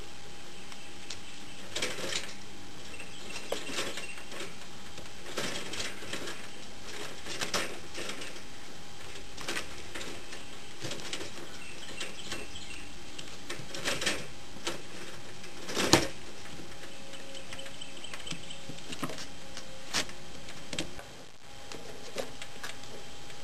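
Young squirrels' claws tapping and knocking on a wire cage as they run and climb, in irregular clicks with a sharper knock about sixteen seconds in, over a steady background hum.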